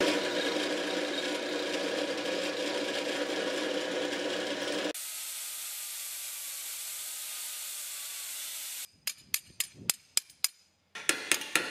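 Drill press running and drilling a hole through the center of a small metal part, a steady motor hum. About five seconds in it cuts to a small pneumatic cutoff tool running with a steady high hiss, and near the end a ball-peen hammer taps metal several times in quick, sharp strikes.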